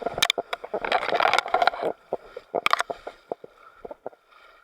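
Splashing, sloshing water with sharp knocks and scrapes: a paddle working a small boat through marsh water. The splashes are thickest in the first two seconds, then thin out to scattered knocks.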